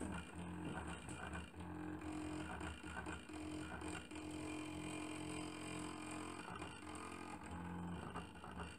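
Stepper motors salvaged from DVD drives humming as they step a homemade pen plotter across a bitmap, with a tone that comes and goes and a scatter of small ticks as the pen is lowered and raised.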